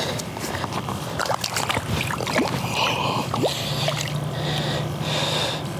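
Small splashes and sloshing of shallow water by the rocks as a small redfish is let go by hand and swims off, splashing at the surface.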